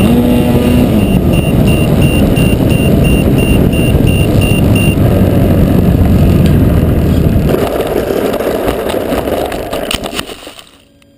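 Wind buffeting the onboard camera microphone of a Parkzone T28 Trojan RC plane flying low with its electric motor running, then the plane touching down and scraping through grass as it flips over. The noise drops away sharply about ten and a half seconds in.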